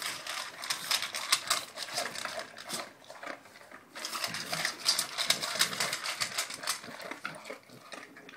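Amstaff dog eating from a bowl: rapid, irregular crunching and clicking of chewed food, easing off briefly about three seconds in and then resuming.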